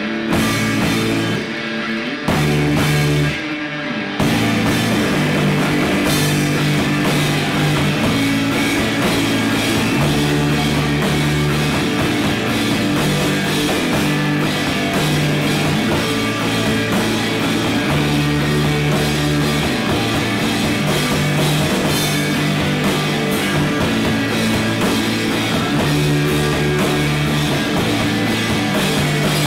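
A live rock band of two electric guitars, electric bass and drum kit playing loudly. The first four seconds come in stop-start hits, then the full band plays on with the bass notes changing about every two seconds.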